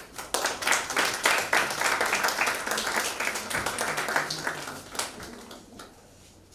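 Audience applauding: many hands clapping start abruptly, hold for a few seconds and die away about five seconds in.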